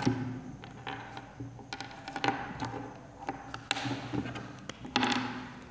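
Scattered light taps and clicks with a few short scratchy rubs, from a whiteboard marker being handled against the board.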